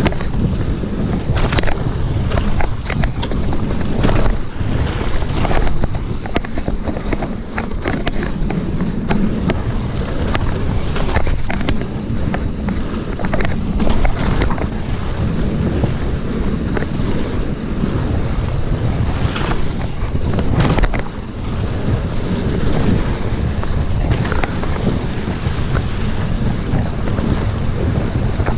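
Wind buffeting the microphone of a camera on a downhill mountain bike at speed, with frequent sharp clatters and rattles as the tyres and bike hit the rough trail.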